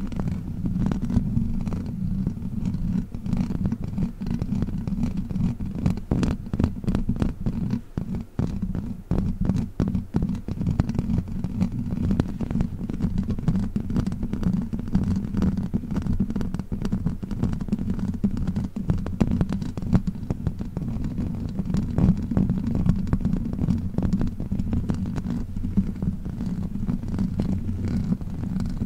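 Witch finger trigger rubbed and scratched close on the microphone: a steady low rumble with dense, quick scratchy crackles.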